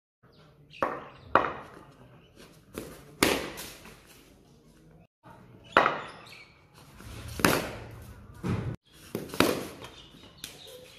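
Sharp, irregular knocks from a cricket game on a hard courtyard floor: bat striking the ball and the ball bouncing, about seven hits.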